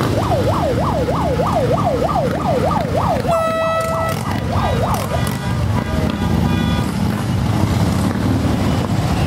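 Siren on yelp, a fast up-and-down wail about three times a second. About three seconds in, a short steady horn note breaks in, then two more yelps. A low engine rumble runs underneath.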